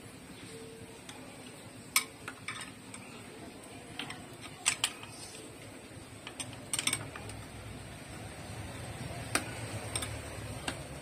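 Scattered sharp metallic clicks and clinks of hand tools and metal parts being handled during engine work, over a low steady hum that grows a little louder in the second half.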